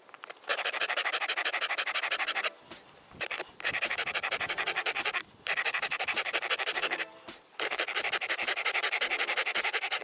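Hand file rasping the end of an old wooden rake handle to thin it down, in quick back-and-forth strokes. The filing comes in three bouts with short pauses between them.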